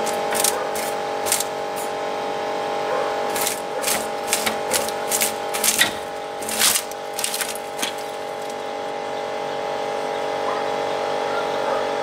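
Donaris Puma EA hydraulic band sawmill running with a steady machine whine, with irregular sharp clicks and cracks, most of them between about three and eight seconds in, as the log is handled on the bed.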